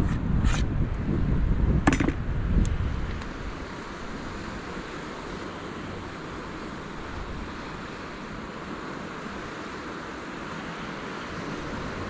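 Gusts of wind rumbling on the microphone, with three short knocks in the first three seconds, then a steady hiss of wind and sea water.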